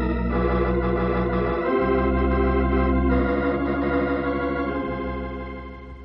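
Organ music bridge marking a scene change in a radio drama: held chords that shift twice, then fade out near the end.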